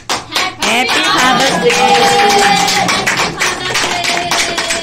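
A group clapping hands in a quick, steady rhythm, with voices over it and a couple of long held notes.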